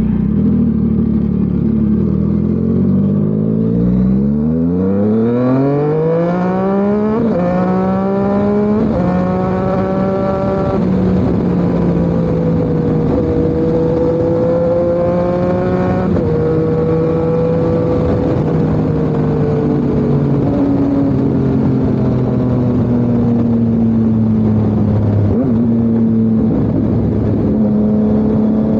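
Yamaha MT-09's three-cylinder crossplane engine through an SC Project CRT exhaust, accelerating hard with a steeply rising note, then shifting up through several gears, each shift a sudden drop in pitch. It then settles into a steadier run, with the note slowly falling as the bike eases off.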